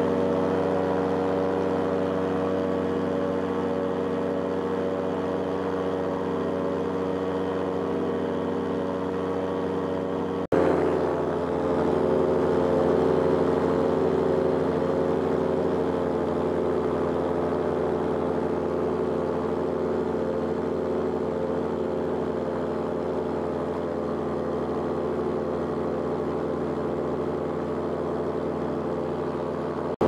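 Paramotor engine and propeller running steadily in flight, with a constant drone. About a third of the way in the sound cuts out for an instant, then the engine runs on with its pitch wavering slightly.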